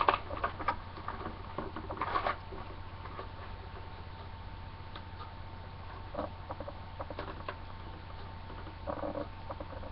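Small clicks, taps and rustles of plastic toy packaging and parts being handled. Busy for the first couple of seconds, then a few scattered taps over a faint steady hum.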